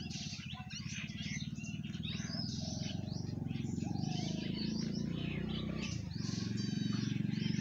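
Many small birds chirping and chattering at once, with a brief fast trill near the end, over a steady low hum.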